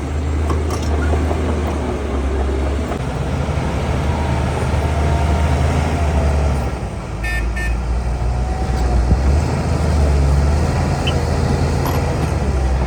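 Heavy earthmoving machinery's diesel engine running, its deep drone rising and easing with the load. A short horn toot sounds about seven seconds in.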